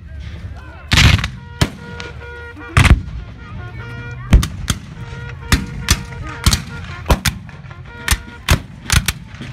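Ragged black-powder musket fire from reenactors' rifle-muskets firing blanks: about a dozen sharp shots at irregular intervals, some closely paired, with no clean single volley. A faint steady held tone sounds behind the shots.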